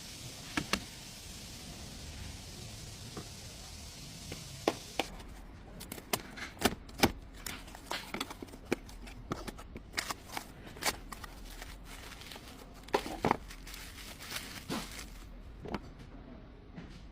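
Irregular sharp clicks and light knocks of hand work, such as tools and parts being handled, sparse at first and coming thick and fast through the middle, over a faint steady hum.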